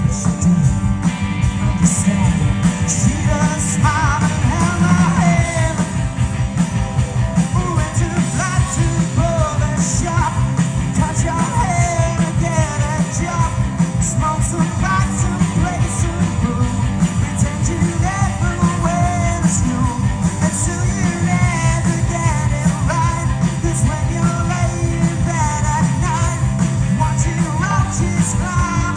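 Live rock band playing a song: steady drum beat, bass and electric guitar, with a lead singer over the top.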